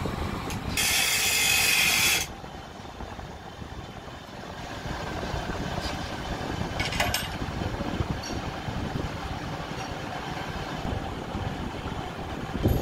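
Workshop noise: a loud hiss lasting about a second and a half shortly after the start, then a steady low rumble with a few light clicks as metal tie rod end parts are handled in a screw press.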